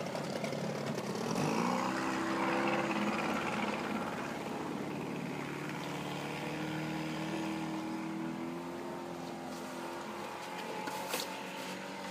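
Boat outboard motor running steadily; its pitch rises briefly about a second and a half in, then holds. A single sharp knock near the end.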